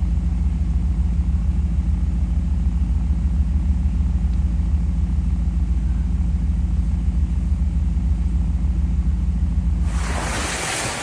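Jeep Wrangler's 3.6-litre V6 engine running steadily with a deep, even rumble. About ten seconds in, a loud rush of wind noise on the microphone covers it.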